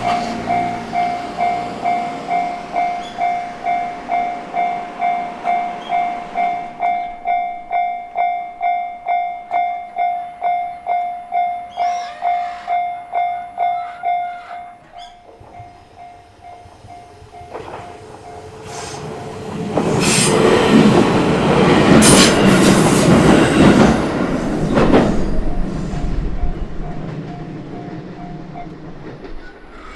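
Japanese level-crossing alarm bell ringing at about two strikes a second, then dropping much quieter about halfway through. A few seconds later a JR Minobu Line train passes over the crossing with a loud rumble for several seconds, fading near the end.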